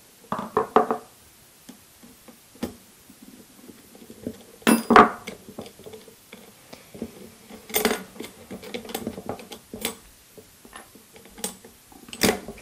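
Irregular clinks, taps and knocks of a screwdriver and the metal parts of a folded light stand being handled on a wooden tabletop while its base screws are taken out. The loudest knocks come about five and eight seconds in.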